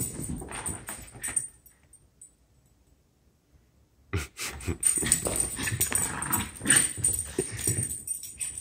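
Small dog making play-fight noises and scuffling while wrestling with a kitten, in two bouts with a quiet gap of about two seconds between them, the second bout starting about four seconds in.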